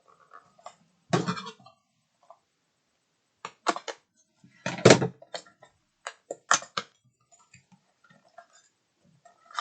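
A small metal tin and its contents being handled and opened by hand: a scatter of knocks and clicks, the loudest about five seconds in.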